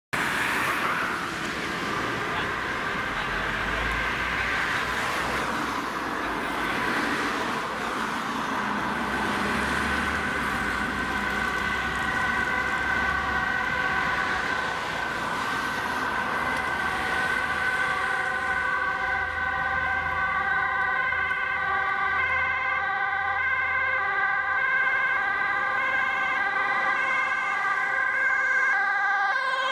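Two-tone siren of a Dutch ambulance on an emergency run, switching steadily between a high and a low note over road traffic noise. The siren grows clearer as the ambulance comes closer.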